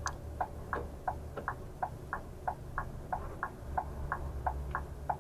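Turn-signal indicator ticking steadily in a Scania coach's cab, about three ticks a second, over the low hum of the idling diesel engine.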